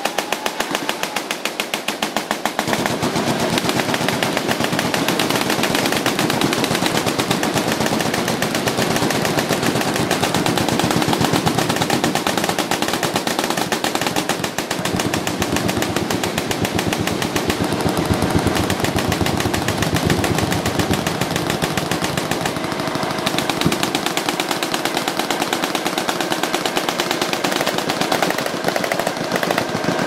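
Continuous automatic machine-gun fire: a dense, unbroken rattle of rapid shots.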